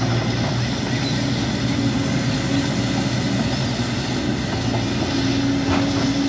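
Diesel engine of a JCB tracked excavator running steadily under load as the machine slews and works its hydraulics, with one short knock near the end.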